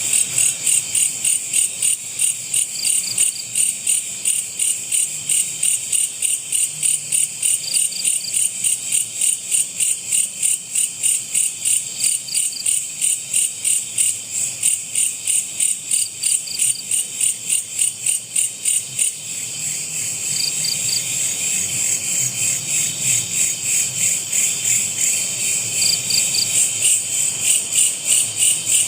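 Chorus of night insects in the forest: a loud, fast pulsing high trill over a steady high buzz, with a short double chirp every few seconds. A little past halfway the pulsing fades and the steady buzz carries on.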